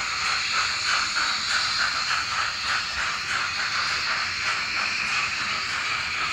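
N-scale model train running on the layout: a steady hiss with a quick rhythmic pulsing, about four beats a second.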